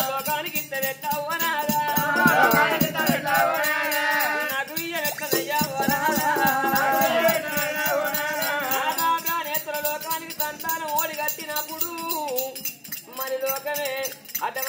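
Telugu Oggu Katha folk singing: voices singing a melodic line over steady rhythmic jingling and rattling percussion.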